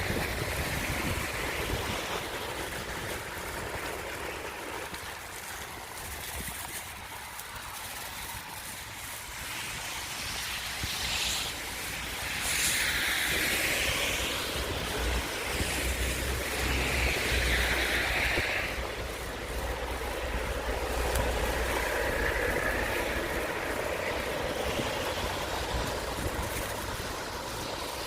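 Wind and road noise while riding a bicycle along a slushy street, with a low rumble of traffic going by about midway.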